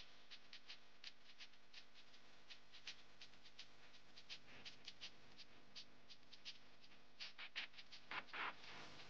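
Dal, mustard seeds and cashews frying in hot ghee in a non-stick pan, giving small sharp pops and crackles a few times a second. About eight seconds in, a steel spoon scrapes and stirs across the pan.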